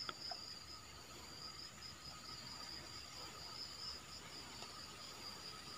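Faint, steady high-pitched insect chirring, with a small click just after the start.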